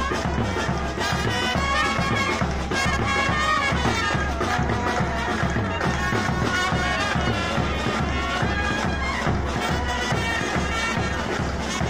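A Pahari brass band of horns and trumpets playing a lively folk dance tune over a steady drum beat.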